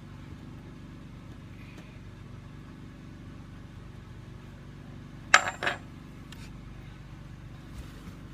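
A metal spoon clinking sharply against a container twice in quick succession, a little past the middle, while scooping out liquid starch, over a steady low background hum.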